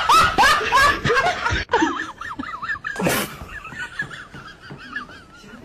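Laughter, loud and bursting for the first second and a half, with another short loud outburst about three seconds in, then trailing off into quieter, high wavering sounds.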